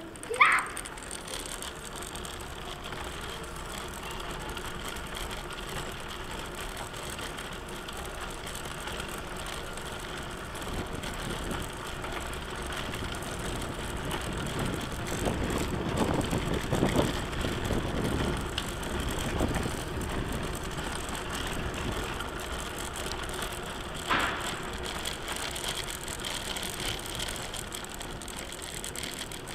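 Recumbent trike rolling over cobblestones, its wheels and frame rattling steadily, rougher and louder for a few seconds around the middle. A brief high-pitched squeak about half a second in, and a fainter one near the end.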